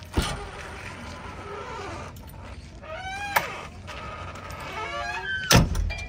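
The steel-and-glass cab door of a JCB 3DX backhoe loader: the latch clicks open just after the start, squeaky creaks follow twice as the operator climbs aboard, and the door shuts with a heavy slam about five and a half seconds in.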